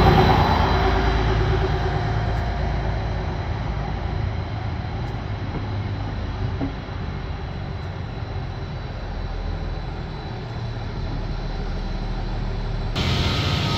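Trenord ATR 125 diesel multiple unit pulling out slowly: its diesel engine is loudest at the start, then the cars rumble steadily past on the rails.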